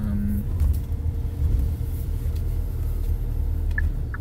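Car cabin noise while driving: a steady low road-and-engine rumble. Near the end a regular light ticking begins, about three ticks a second.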